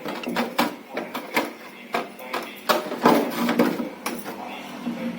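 Irregular knocks and clicks of hard objects being handled and set down, a dozen or so sharp strikes of varying loudness, the loudest about three seconds in.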